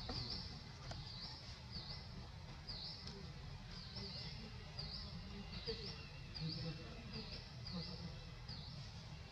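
A small bird chirping over and over, short high chirps about three every two seconds, over a low steady outdoor rumble.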